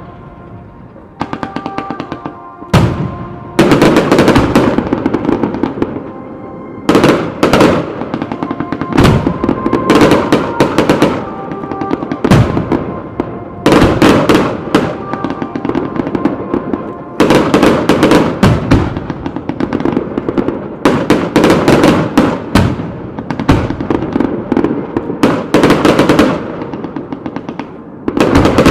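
Aerial firework shells bursting one after another in a display: loud bangs, sparse at first and then coming several a second, with crackling between them. Music plays underneath.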